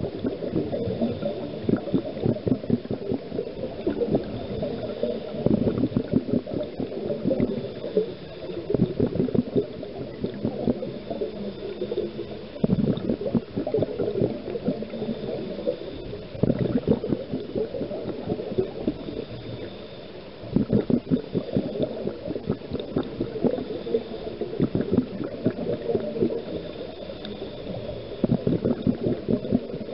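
Scuba diver's exhaled bubbles recorded underwater: bursts of gurgling, crackling bubbles from the regulator every few seconds, in time with the diver's breathing.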